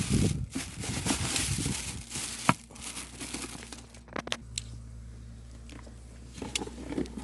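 Packaging crinkling and rustling as an air compressor is unpacked from its box, then a few sharp clicks and knocks of the unit and parts being handled.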